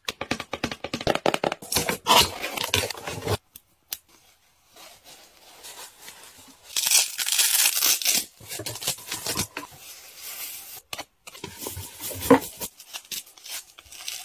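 Packaging being opened: cardboard box and plastic wrapping handled, rustling and tearing as a plush toy is unpacked. The longest, loudest tearing rustle comes about seven seconds in, after a short quiet pause.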